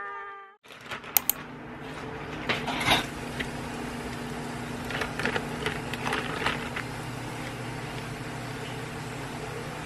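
Steady electric motor hum with a few sharp clicks and clinks in the first three seconds and again around five to six seconds in.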